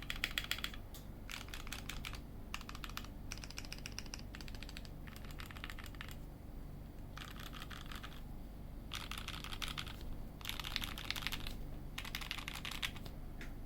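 Typing on a Singa Unikorn mechanical keyboard with Milky Gateron Yellow linear switches: fast runs of key clacks in bursts of about a second, broken by short pauses.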